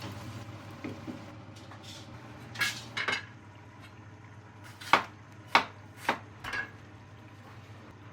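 A metal cooking utensil clanking against the pot while lamb is stir-fried. Sharp knocks come in a faint pair, then a louder pair, then the loudest run of four close together near the end.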